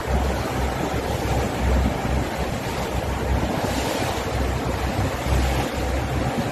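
Wind buffeting the microphone in uneven low gusts over a steady rushing hiss of water on the sea.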